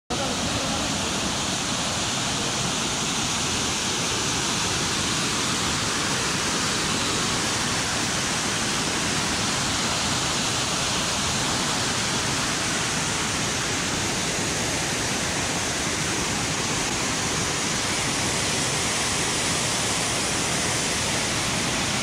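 Waterfall swollen after a flash flood, a steady full roar of water pouring over rock.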